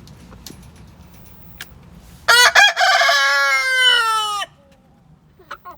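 A rooster crows once, starting about two seconds in: one long call that falls in pitch at the end. Chickens cluck faintly around it.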